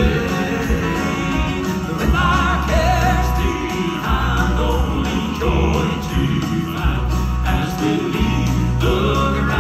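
Male gospel quartet singing in close harmony through microphones, over a live band with sustained bass notes.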